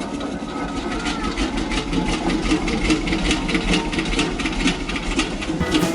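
An engine running with a steady rhythmic beat, about five knocks a second over a low hum.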